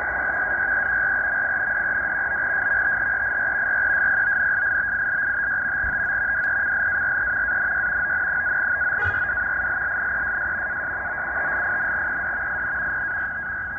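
NAVTEX marine broadcast data signal (SITOR-B two-tone frequency-shift keying) heard from a Tecsun H-501X shortwave receiver's speaker in upper sideband. It is a steady, high-pitched, fast warbling data tone over static hiss, with one faint click about nine seconds in.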